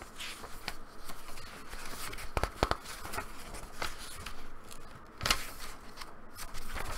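Pages of a small paper poetry zine being turned and handled: dry paper rustling and crisp flicks, with a few sharper snaps, the loudest about two and a half seconds in and another just past five seconds.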